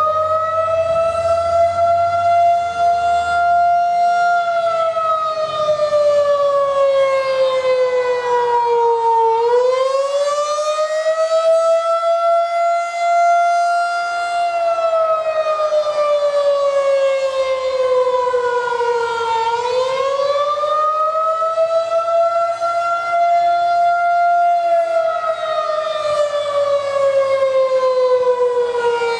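Federal Signal 2001 outdoor warning siren sounding a wail during a monthly test. Its single tone rises, holds and slowly falls again about every ten seconds, three cycles in all.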